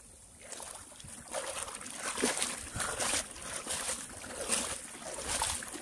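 Water sloshing and splashing around a small fishing boat: quiet at first, then a run of short, uneven splashes from about a second in.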